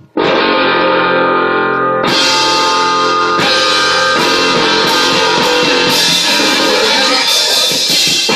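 Live amplified band playing rock-style music, with electric guitar and drum kit. It starts abruptly just after the start, and the cymbals and drums come in fuller about two seconds in.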